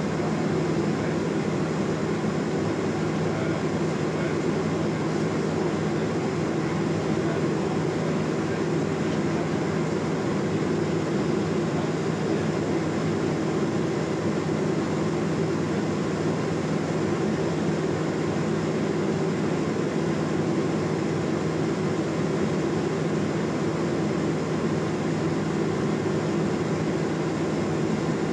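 Steady drone of a Cessna P210 Centurion's engine and propeller in flight, heard from inside the cabin, even in level throughout.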